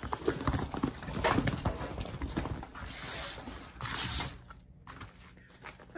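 Paper inserts and a folded pamphlet being handled and turned over: rustling with a run of light taps and knocks, and a longer swish of paper about three to four seconds in, then quieter near the end.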